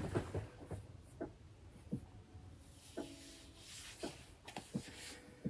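Pages of a paperback book riffled under the thumb: soft paper rustling with scattered small ticks as the pages flick past, thickest about three seconds in.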